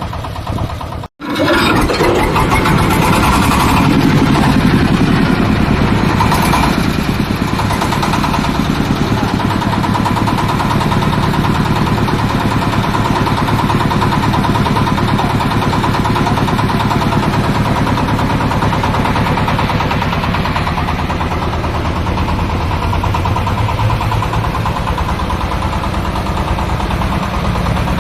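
Engine-driven corn sheller running steadily, threshing unhusked maize. There is a dense, continuous mechanical noise with a brief cut-out about a second in.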